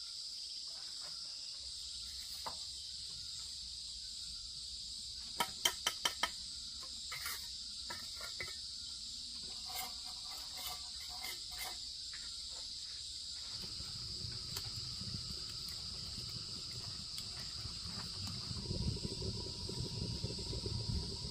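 Insects chirring steadily in a continuous high drone. About five seconds in comes a quick run of sharp taps, a bricklayer's steel trowel knocking on clay bricks, followed by lighter scattered clicks. A low rumble builds in the last several seconds.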